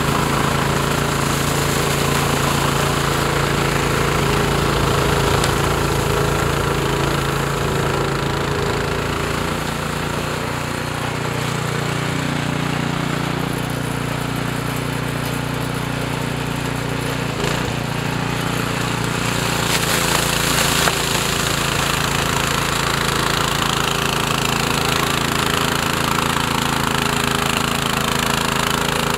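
Cub Cadet snowblower's single-cylinder engine running steadily under load while clearing snow. It grows fainter in the middle as the machine moves away, then louder again as it comes back, with more hiss of thrown snow in the second half.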